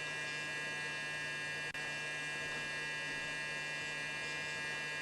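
Steady electrical hum and buzz made of many fixed tones, unchanging throughout apart from a brief dropout about two seconds in.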